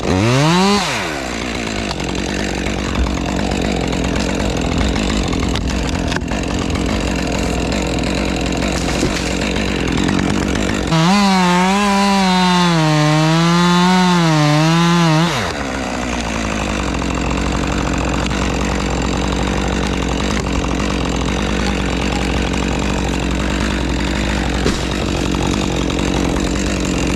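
Chainsaw cutting into a tree trunk, revved up at the start. About eleven seconds in, the saw runs at full throttle for around four seconds with a wavering engine pitch, then goes back to cutting.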